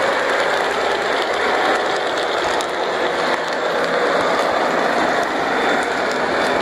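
O scale model train running on the layout's track: a steady mechanical running sound of motor and wheels, with faint ticks scattered through it.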